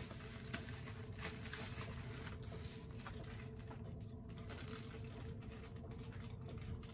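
Cigars and their packaging being handled on a desk: faint rustling and scattered small clicks, over a faint steady hum.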